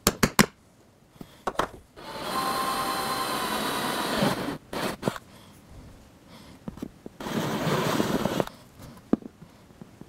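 Cordless drill boring 5/16-inch holes through the plastic base of a motorcycle seat. It makes two runs: one of about two and a half seconds starting two seconds in, and a shorter one near the end. A few sharp clicks come right at the start.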